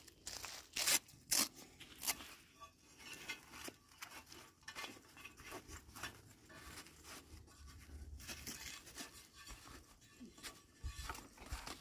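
Handling noise from a nylon plate carrier: fabric rustling and straps scraping as a plate is worked up out of its front pocket, with three short sharp rasps in the first two seconds.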